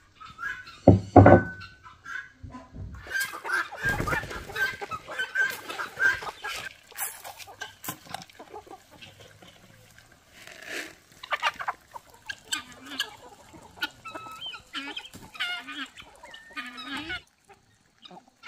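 A flock of chickens clucking and calling over each other while feeding on scattered corn, with a loud thump about a second in.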